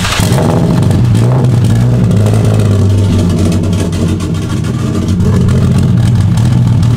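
Nissan 370Z's 3.7-litre V6, newly turbocharged, running loud and steady just after its first start on a base-map tune.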